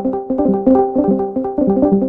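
Discord's voice-channel join and leave notification chimes going off over and over, overlapping, about four or five short pitched tones a second.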